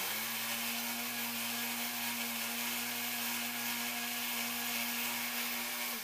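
Lionel 182 magnetic crane's electric motor and gearing running to lower the lift magnet on its cable: a steady mechanical hum with an even whir.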